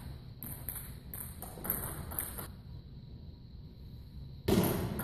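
Table tennis rally: the celluloid-type ball clicking off paddles and table about three times a second, stopping about halfway through. A louder sudden thud comes near the end.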